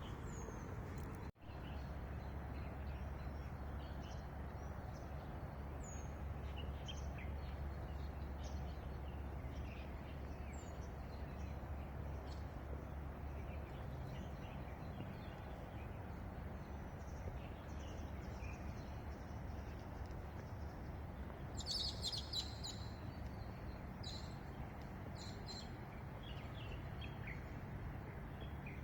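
Small birds chirping and calling in scattered short notes over a steady low background rumble. A louder flurry of chirps comes about two-thirds of the way through.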